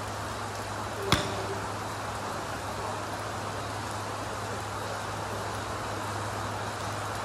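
A Mizuno MP-33 blade iron strikes a golf ball off a turf mat once, a sharp crack with a short ring about a second in, over the steady hiss of rain.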